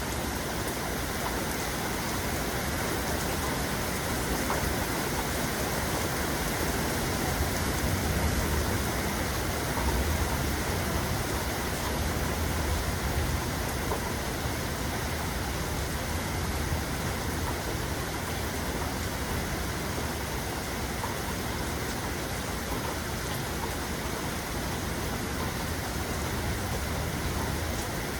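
Steady heavy rain falling. Low rumbles of distant thunder swell a couple of times about a third of the way in.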